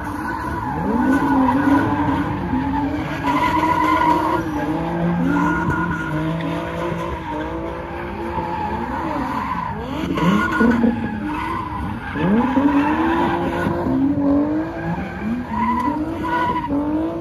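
Car engines revving hard and dropping back, again and again, over steady tire screeching from cars spinning donuts.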